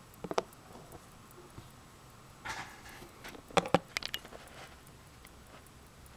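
Elgin 15-jewel pocket watch movement ticking faintly and evenly at about five ticks a second. Louder clicks and a brief scratchy rub come from fingers handling and turning the watch case, the loudest cluster about three and a half seconds in.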